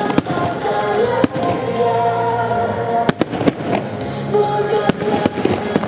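Aerial fireworks bursting with several sharp bangs, irregularly spaced, over loud music that plays throughout.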